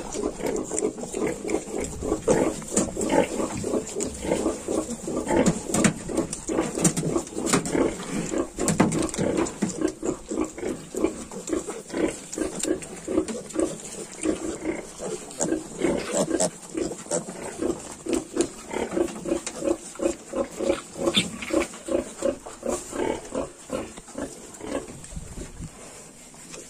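Yorkshire sow and her 22-day-old piglets grunting while the piglets nurse: a rapid, continuous run of short grunts, with small clicks and knocks from the jostling litter.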